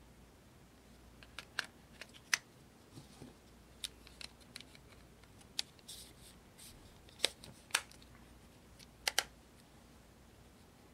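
Irregular sharp plastic clicks and brief light scrapes as a Nokia N97 mobile phone's battery and SIM card compartment is handled by hand, with its back plate off. The clicks come singly at uneven gaps, with a quick double click about nine seconds in.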